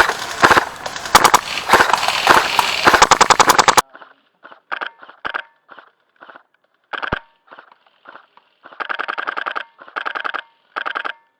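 Airsoft guns firing rapid full-auto bursts, loud and dense for the first few seconds. About four seconds in it drops off abruptly, leaving fainter, shorter bursts of rapid clicks.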